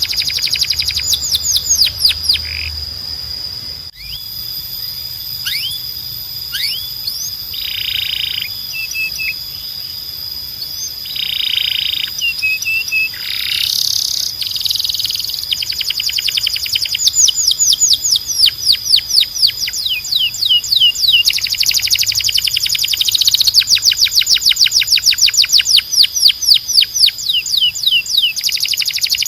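Timbrado Español canary singing: rapid trills of repeated falling notes, phrase after phrase at different speeds with short breaks, the fastest and loudest trills in the second half.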